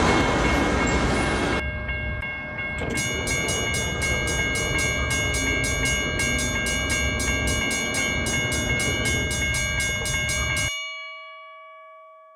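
Freight train rumbling past. About two seconds in, the rumble drops and a steady chord of ringing tones with a quick, even pulse takes over. It cuts off suddenly about ten seconds in, leaving two faint tones that die away.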